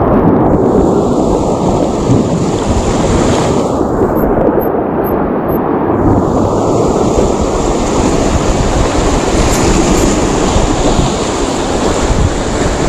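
Loud, steady rumble of wind buffeting the microphone, mixed with surf washing and breaking over breakwater rocks.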